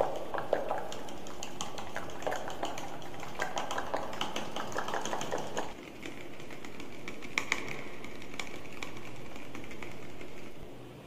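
Close-miked ASMR trigger sounds into a condenser microphone. For about six seconds there is quick, dense clicking and tapping at the mouth around a small ribbed wooden object. Then comes quieter crinkling and rustling of a green plastic mesh, with a few sharper clicks.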